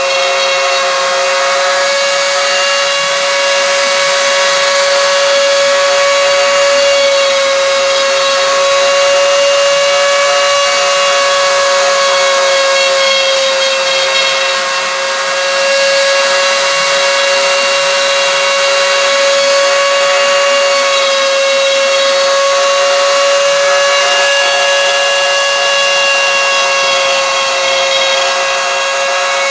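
CNC machine running steadily, giving off a constant high-pitched whine with a hiss that holds nearly the same pitch throughout.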